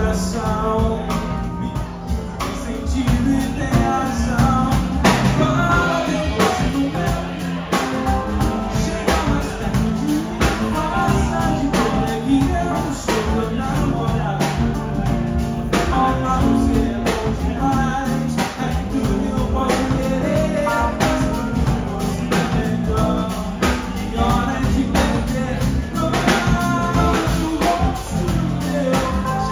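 A live band playing: a man singing into the microphone over electric guitar and a drum kit.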